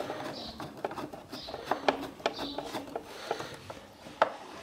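Small Phillips screwdriver tightening a screw in a sandwich grill, with irregular light clicks and scrapes as the blade turns in the screw head.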